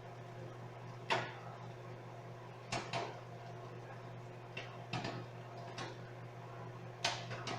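Microwave oven running with a steady low hum while popcorn kernels pop inside, a sharp single pop every second or so, about eight in all.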